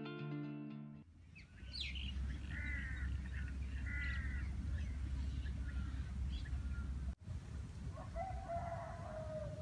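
Guitar music fades out in the first second. Then birds chirp several times over a steady low rumble, and near the end a rooster crows once in a long call.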